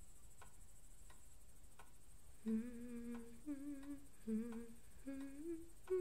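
A single voice humming a slow, wavering tune in long held notes, starting about halfway through, over faint regular ticking about three times every two seconds.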